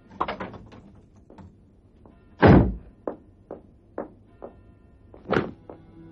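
Handling of a tall wooden door: a heavy thunk about two and a half seconds in, the loudest sound, then four light clicks about half a second apart and another sharp knock near the end.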